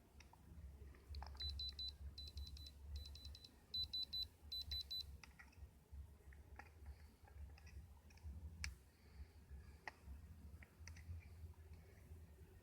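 An electronic device beeping: five short bursts of rapid high-pitched beeps over about four seconds, followed by scattered small clicks and taps.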